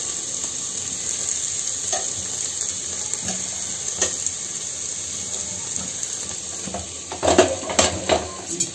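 Ground onion-tomato masala sizzling steadily in oil in an open pressure cooker, with a few light clicks. From about seven seconds in, a run of loud metal clatters from utensils knocking against the pans.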